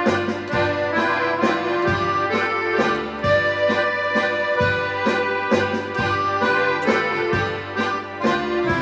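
Accordion playing a vallenato melody over a steady beat of about two strikes a second, with a bass line underneath.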